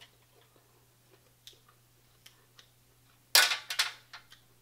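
Boiled shellfish shell being cracked open by hand: a few light clicks and taps, then a loud crack followed by several quick snaps about three and a half seconds in.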